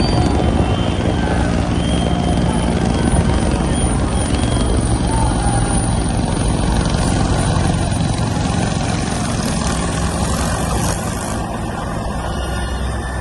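Helicopter flying overhead, its rotor and engine running loud and steady, easing a little near the end.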